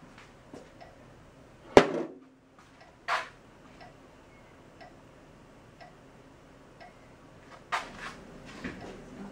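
Scattered sharp taps and knocks from handling the cups on the sheet-metal trays, the loudest about two seconds in, over faint, evenly spaced ticks about once a second.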